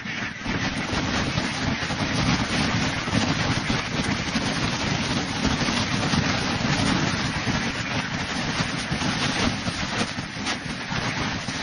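Wind buffeting the microphone: a loud, steady rushing noise that covers everything else, starting abruptly at the beginning.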